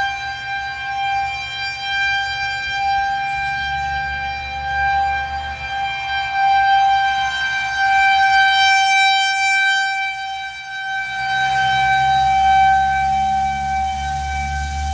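Federal Signal 2001-130 rotating outdoor warning siren sounding a steady single tone for a tornado warning. The pitch holds level while the loudness swells and fades as the rotating horn sweeps past.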